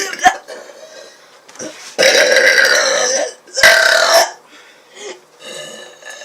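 A woman burping loudly twice: a long burp lasting over a second, then a shorter one whose pitch falls. A sharp click comes just before, near the start.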